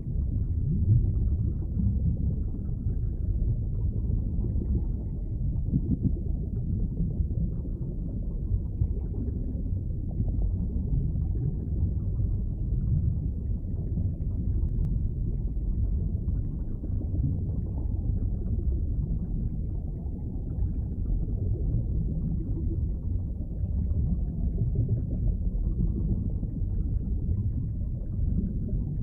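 Underwater ambience: a steady, muffled low rumble of water, deep and without any high sounds.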